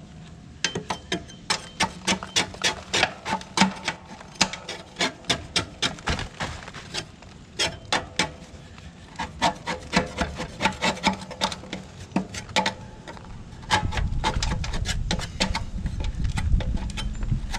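Scraper being dragged across the underside of a mower deck in quick repeated strokes, scraping off caked grass and dirt. A low rumble joins in near the end.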